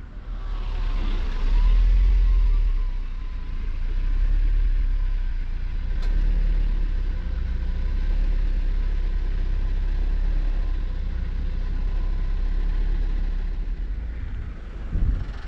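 Strong wind buffeting the microphone in a steady low rumble, with a faint thin whistle that wavers in the first couple of seconds and then holds steady.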